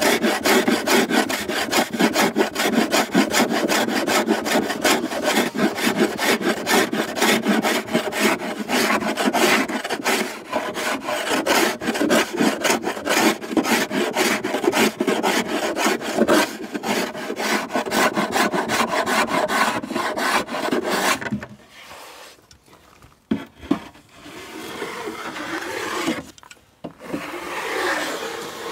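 Small hand plane shaving the edge of a timber board in rapid short strokes, several a second. It stops about three-quarters of the way through, leaving quieter handling sounds and a click or two.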